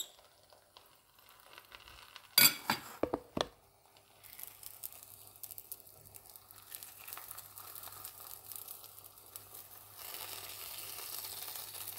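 A few sharp clinks between about two and a half and three and a half seconds in. Then oil sizzles faintly in a frying pan under a martabak telur wrapper being folded around its filling, getting louder near the end.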